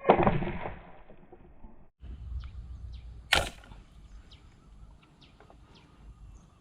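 A fishing arrow is shot at fish in the water: a loud sudden shot and splash at the start, fading over about a second. A second, sharper snap comes about three and a half seconds in.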